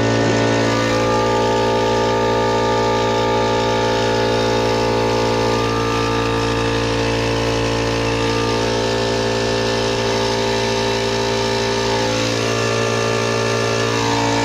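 Air-driven coolant vacuum filler running on shop compressed air: a loud, steady hiss with a hum as it pulls a vacuum on the car's cooling system after the radiator replacement.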